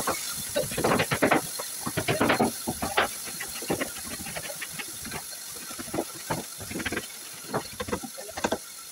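Hand saw rasping through a carved wooden moulding strip in a few strokes, then a hammer tapping the strip onto a wooden frame in quick, irregular light blows, several a second.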